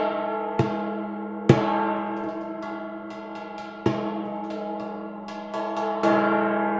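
Waterphone: its metal rods are struck, giving a long, many-toned metallic ringing. Four louder strikes and a run of lighter taps in between keep the ring going as it slowly decays.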